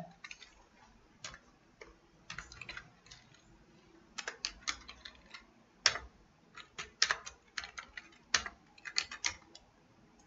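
Typing on a computer keyboard: irregular keystrokes in short runs, with brief pauses between them.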